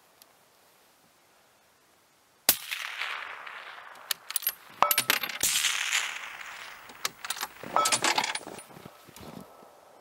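A single bolt-action rifle shot about two and a half seconds in, its report echoing away over a couple of seconds. Clusters of sharp metallic clicks and clinks follow around the middle and again near the end.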